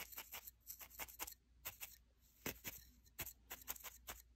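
Barbed felting needle jabbing into loose wool, a soft crisp crunch with each stab, about three or four a second at an uneven pace.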